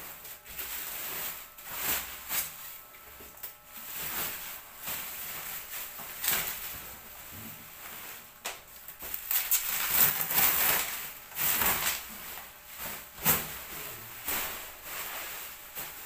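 Clear plastic sheeting and bubble wrap crinkling and rustling as they are pulled off a cardboard box and bunched up by hand. The sound comes in irregular bursts, with several louder crackles.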